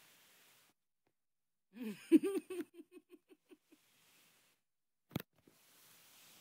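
A person laughing: a short voiced laugh, then a run of quick breathy pulses that fade out. A single sharp tap comes near the end.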